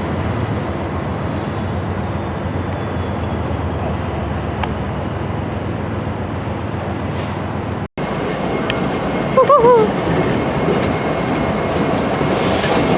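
Diesel locomotives and rail cars in a freight yard: a steady rumble, then a short wavering tone about nine and a half seconds in, and train noise growing louder near the end.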